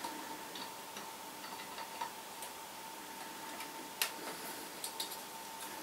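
Screwdriver tip clicking and scraping on a small screw head while the screw is turned down to clamp an earth wire under a washer: irregular light ticks, with one sharper click about four seconds in. A faint steady whine runs underneath.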